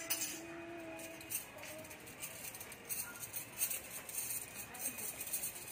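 Thin glass chandelier sticks clinking against each other and against the metal holder discs as they are handled and set in place, a string of small sharp clicks.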